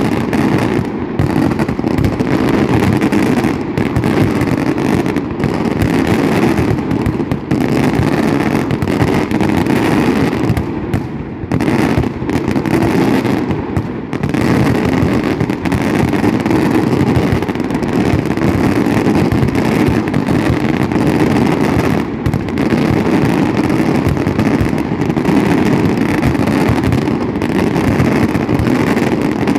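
A dense, continuous barrage of fireworks explosions, the bangs running together into one unbroken rumble, with brief dips about eleven and fourteen seconds in.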